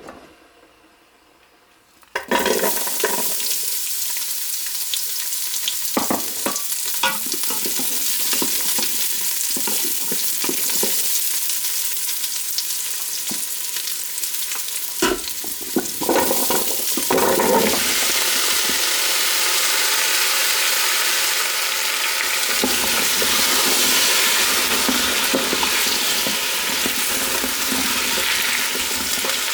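Food sizzling in hot oil in a cooking pot. It starts suddenly about two seconds in, with the clatter and scrape of a utensil stirring it now and then, and the sizzle stays steady.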